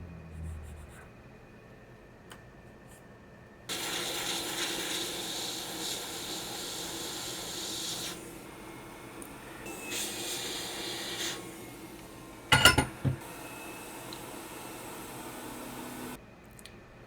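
Steady hiss of a hot-air rework station blowing, switching on abruptly a few seconds in, easing and rising again in level, and cutting off near the end. A few sharp clacks come about two-thirds of the way through.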